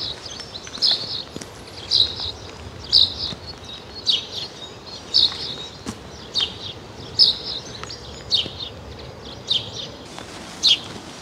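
A songbird calling over and over: a short, high call about once a second.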